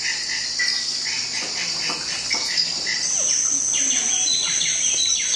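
Rainforest soundscape of a steady high insect buzz with birds chirping, stepping up in pitch about three seconds in.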